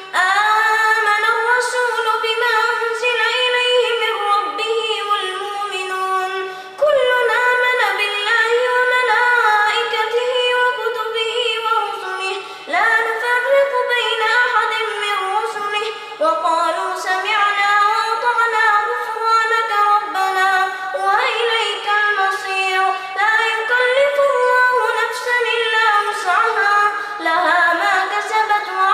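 A boy's high voice reciting the Quran in tajweed style, unaccompanied: long, drawn-out melodic phrases with ornamented turns, broken by several short pauses for breath.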